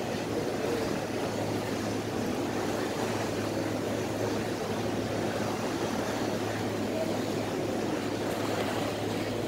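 Ferry under way: a steady drone with a constant low engine hum under wind and water noise.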